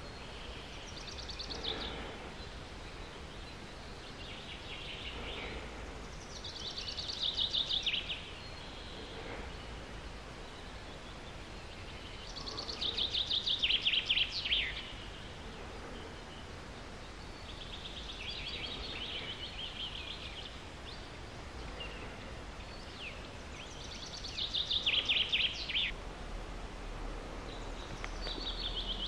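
A songbird singing short, high, rapid trilled phrases, about seven in all, repeating every few seconds, some fainter than others, the loudest just past the middle. A steady low background hiss lies under them.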